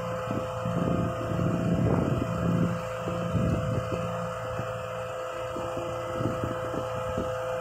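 The RAM 5500's 6.7 Cummins diesel engine idling with a steady hum and a constant whine, and wind gusting on the microphone.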